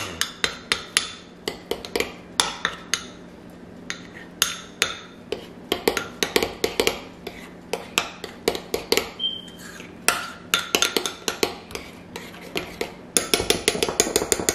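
A metal utensil clinking against a ceramic bowl while stirring a thick cheesecake filling: quick, irregular taps several times a second, with two short pauses and a busier run of stirring near the end.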